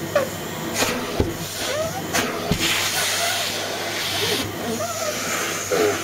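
Handheld vacuum cleaner with a brush nozzle running with a steady hiss and low hum as it is worked over a cotton sock, with a few short knocks as the nozzle bumps the foot.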